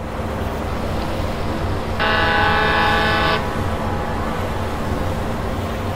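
Ship's horn sound effect: one steady blast about two seconds in, lasting about a second and a half, over a continuous low rumble.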